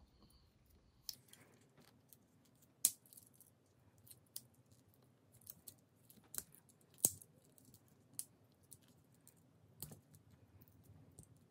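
Faint, scattered sharp clicks and small metallic clinks, about eight of them, as the blades and tools of a Victorinox Climber Swiss Army knife are pulled open and snap back on their springs one by one.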